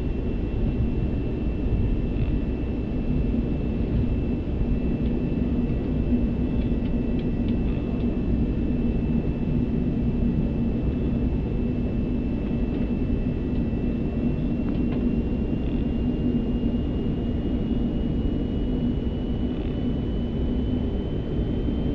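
Airbus A380 cockpit noise during taxi: a steady low rumble and hum from the aircraft rolling at taxi thrust. A thin high whine runs over it and creeps slowly up in pitch through the second half.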